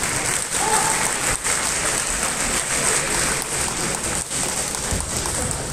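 Audience applauding: dense, steady clapping from many spectators.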